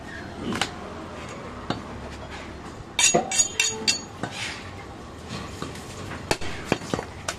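Butcher's steel knife and cleaver clinking: about four sharp, ringing metallic clinks in quick succession about three seconds in, with single knocks on the wooden chopping block before and after.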